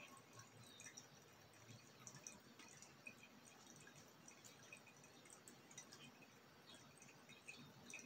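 Near silence, with faint, irregular small ticks of liquid dripping from a glass separatory funnel into a flask.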